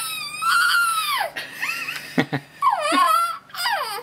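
Baby vocalising in long, high-pitched squeals and coos that bend up and down in pitch: one long call, then a few shorter ones, then another long one about two and a half seconds in.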